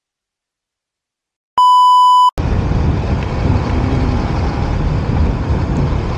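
Silence, then a single loud electronic beep, one steady tone held for under a second. It cuts off and is followed by a steady low rumble of wind and road noise from a moving vehicle.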